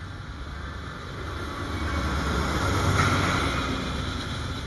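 Norfolk Southern diesel freight locomotives passing close by, a low engine rumble with rolling noise that builds to its loudest about three seconds in as the lead units go past.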